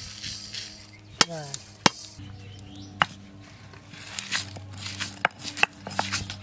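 Dry red chillies and cumin seeds poured onto a flat grinding stone, then crushed under a stone roller. A few sharp cracks come in the first half, then a quick run of crackling as the roller works across them.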